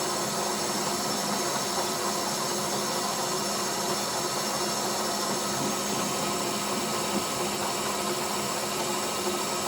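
A machine tool running steadily under power, its motor giving several steady tones over an even hiss with no let-up.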